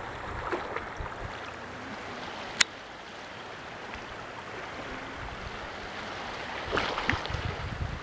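Wind buffeting the microphone in irregular gusts over a steady outdoor hiss, with the gusts picking up near the end. One sharp click about two and a half seconds in.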